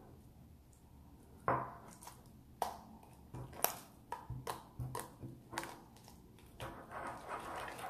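Wet slime being kneaded and pulled by hand in a glass bowl: irregular sticky clicks and pops, starting about a second and a half in and coming closer together near the end. The slime has nearly absorbed the water worked into it.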